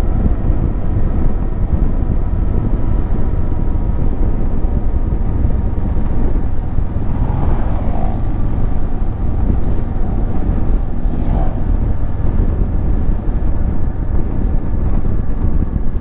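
Kawasaki Versys 650 parallel-twin engine running at a steady cruise, heard from the rider's seat under heavy wind rumble on the microphone. A motorcycle going the other way passes about halfway through, its sound swelling and fading.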